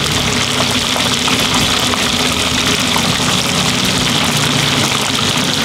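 Steady low hum with a hiss over it: the running noise of a street-food stall's gas burner and deep fryer, oil frying.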